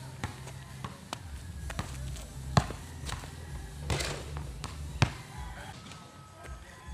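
Basketball bouncing on a concrete court: a few sharp thuds, the loudest about two and a half and five seconds in, with a noisy rattle around four seconds in as the ball meets the rim.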